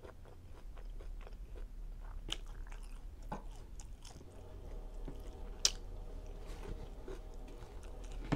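Close-up chewing of chicken fajitas wrapped in a tortilla: wet mouth clicks and smacks as the food is bitten and chewed, with one sharper click about two-thirds of the way through.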